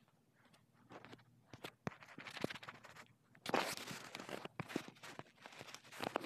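Scattered clicks and rustling: finger taps and handling noise from a phone picked up close by its own microphone.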